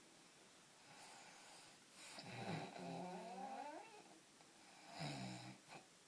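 A man snoring in his sleep: a long, wavering snore about two seconds in, then a shorter snore about five seconds in, ending in a brief snort.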